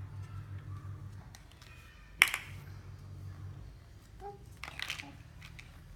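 Small plastic sand-mould toys clicking and tapping: one sharp, loud click about two seconds in, then a few lighter clicks near the end, over a low steady hum.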